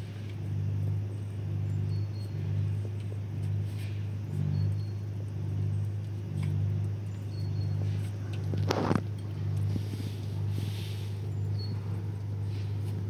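A steady low machine hum with a regular pulsing throb, about twice a second, under small scattered clicks. A single sharp scrape or knock about nine seconds in is the loudest moment.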